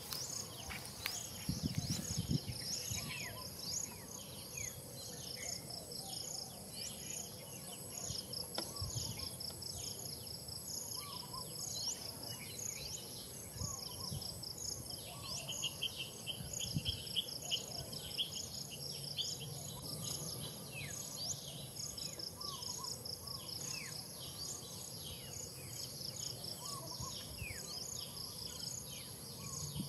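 Outdoor insect chorus: a steady high-pitched drone with a regular pulsing chirp over it, and a lower buzzing call that swells for a few seconds about halfway. Short, high bird chirps come and go throughout.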